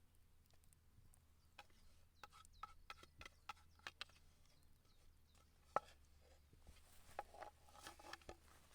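Faint, scattered clicks and light taps of cutlery against dishware: a few around two to four seconds in, the sharpest about six seconds in, and another short cluster near the end.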